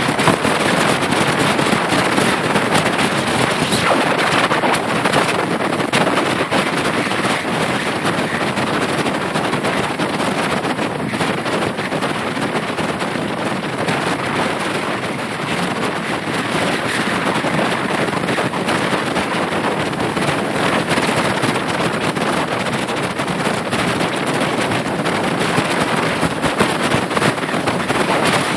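Loud, steady rushing noise on a phone's microphone, with scattered faint crackles.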